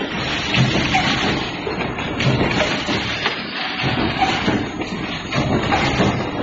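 Automatic hex-nut forging line running: a dense mechanical clatter with a heavy stroke repeating about every second and a half.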